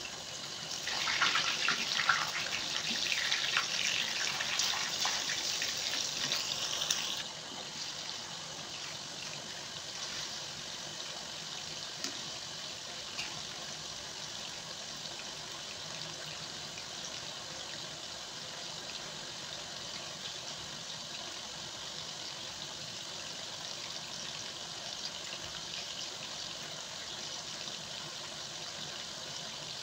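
Fish frying in ghee in a pan on a small gas stove: a loud crackling sizzle for the first several seconds, dropping suddenly about seven seconds in to a steady, softer sizzle.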